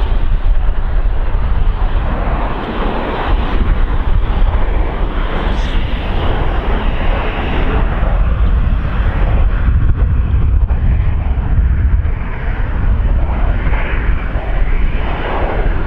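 Boeing 737-800 airliner's CFM56 jet engines on approach, gear down: a steady rumble with a rushing hiss, heaviest in the low end.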